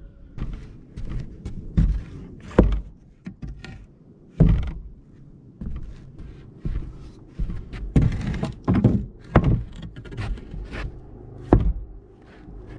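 2x4 wooden studs being set down and dropped onto an OSB plywood deck: a series of irregular thunks and knocks, the loudest near the middle and near the end.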